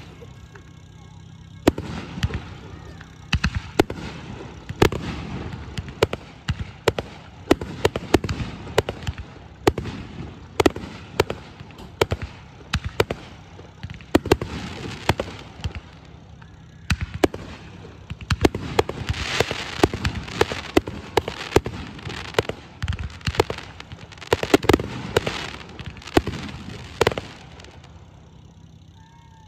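Fireworks display: a rapid string of sharp bangs from aerial shells launching and bursting, several a second, with stretches of dense crackle from crackling stars. The bangs thin out near the end.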